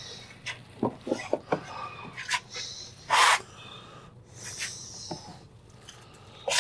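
Light plastic clicks and knocks, then a short sliding scrape about three seconds in, as the plastic detergent dispenser drawer of a Whirlpool front-loading washer is worked loose and pulled out.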